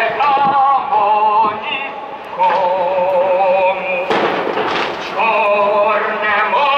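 Amplified singing over a public-address system, in long held notes that waver, with loud crackling firework bangs breaking in about four seconds in and again near the end.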